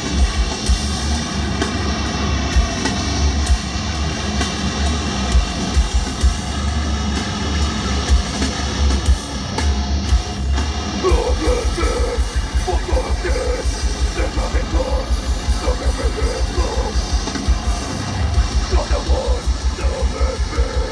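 Hardcore band playing live and loud: distorted electric guitars over drums. About halfway through, the drums switch to a fast, even pulse of low kick hits.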